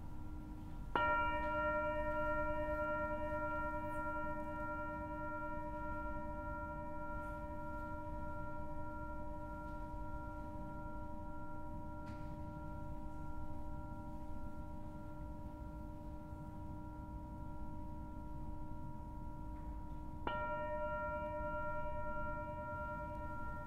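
Mindfulness bell, the signal that calls listeners back to the present moment, struck twice: about a second in and again near the end. Each stroke rings on for a long time with several steady overtones.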